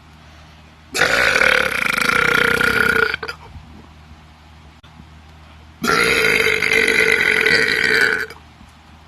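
Two long, loud human burps on command, each lasting about two and a half seconds at a steady pitch; the first starts about a second in, the second about six seconds in.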